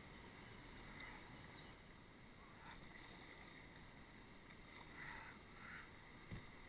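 Very faint water sounds around a canoe on a river: a few soft splashes and one low knock near the end.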